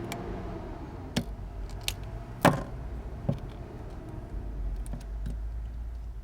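A handful of sharp clicks and taps of a small tool against phone parts while a phone is being taken apart, the loudest about two and a half seconds in, over a steady low hum.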